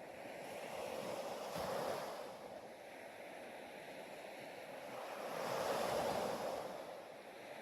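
Ocean surf: waves washing in, with two slow swells of rushing water about four seconds apart.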